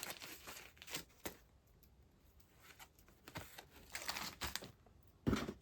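Quiet rustling and crinkling with scattered light taps as small packed items are handled and moved about.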